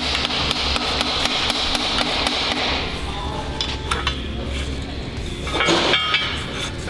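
Metal parts and hand tools being handled in a workshop: a run of light metallic clicks and taps over a steady low hum, with a short burst of rapid clicks near the end.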